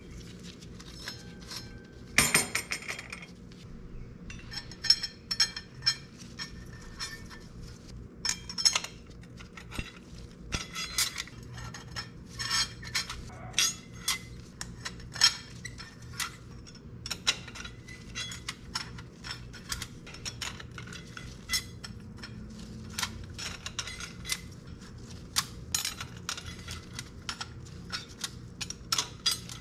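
Metal parts and hand tools clinking and clicking irregularly as a motorcycle slipper clutch is assembled, with a brief rattle about two seconds in.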